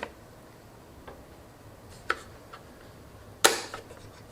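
Graphics-card packaging being handled: a few faint clicks, then one sharp crinkling snap about three and a half seconds in. It sounds a little crunchy.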